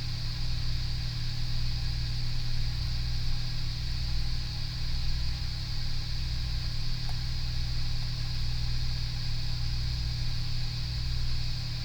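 Steady whir of a hot-air rework station's blower with a low electrical hum, running without change while heat is kept on the circuit board.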